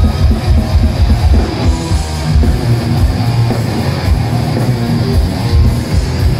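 Thrash metal band playing live and loud: distorted electric guitars and bass over rapid drums.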